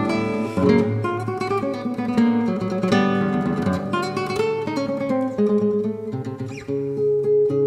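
Background music: acoustic guitar playing in a Spanish, flamenco-like style, with quick plucked notes and strummed chords.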